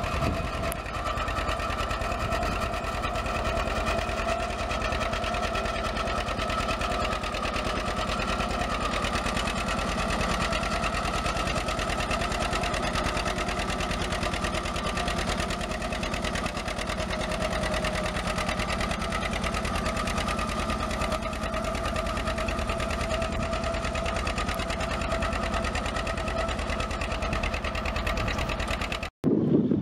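John Deere 620's two-cylinder engine running steadily under load while pulling a moldboard plow through sod, a fast, even pulsing exhaust beat. The sound cuts off abruptly just before the end.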